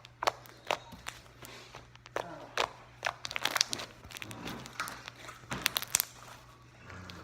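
Slime being squished and stretched by hand, giving irregular sharp pops and clicks of trapped air.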